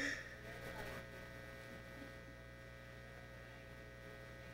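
Faint, steady electrical mains hum from the wired microphone and sound system: a few steady tones over low hiss.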